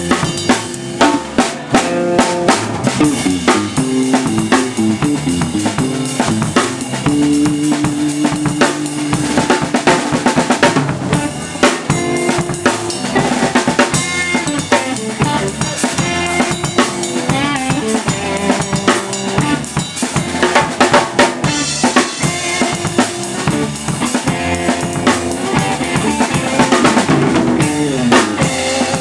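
Live rock band playing, with the drum kit closest and loudest: driving bass drum, snare and cymbal hits over electric guitar and bass guitar.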